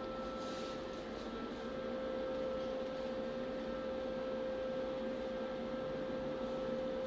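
Steady electrical or motor hum with a constant mid-pitched tone over a soft hiss, unchanging throughout.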